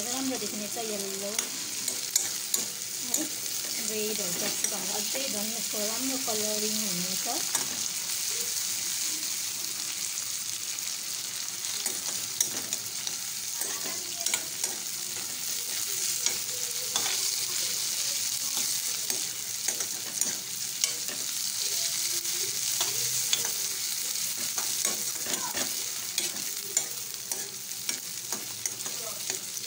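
Rice noodles with green capsicum and onion sizzling in oil in a metal kadai, stirred and tossed with a metal spoon. The steady sizzle is broken by frequent sharp clinks and scrapes of the spoon against the pan.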